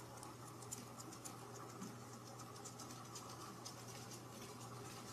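Faint light scratching with scattered small clicks and ticks, over a low steady hum.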